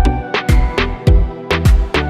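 Instrumental Indian fusion background music with a steady beat of heavy bass drum hits, about two a second, under sustained melodic tones.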